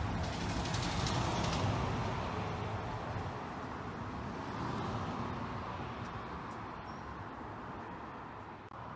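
Steady rushing engine noise of a distant aircraft overhead, slowly fading.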